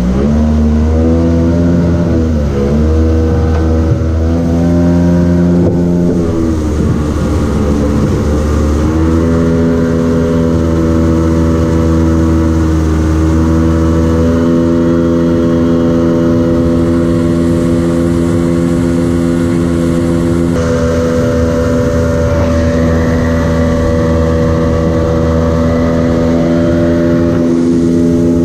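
Outboard jet boat engine running under way, heard from the bow. Its pitch dips and climbs back twice in the first nine seconds as the throttle is eased and reopened, then holds at a steady cruising speed.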